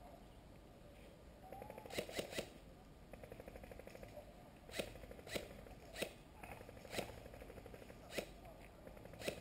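Airsoft guns firing: about nine sharp cracks, three in quick succession about two seconds in and then one every second or so, over a faint, rapid rattle of automatic fire.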